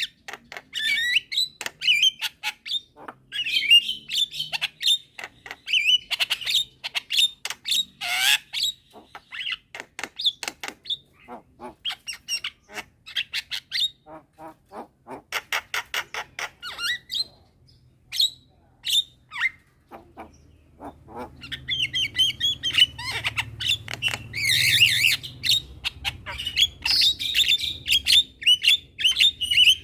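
Javan mynas chattering: quick runs of harsh clicking notes mixed with squawky whistles. There is a sparse lull just past the middle, then the calling turns dense again over a low background hum.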